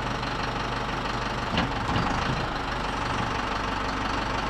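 An engine running steadily at idle, with a brief sharp knock about one and a half seconds in.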